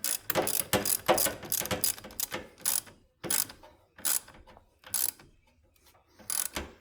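Ratchet wrench clicking: fast continuous runs of clicks, then short strokes about once a second.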